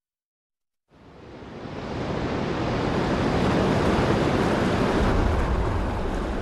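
Steady rush of wind and sea waves, fading in after about a second of silence.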